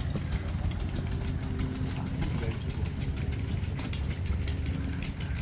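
An engine running steadily at idle, a low, even rumble, with faint voices in the background.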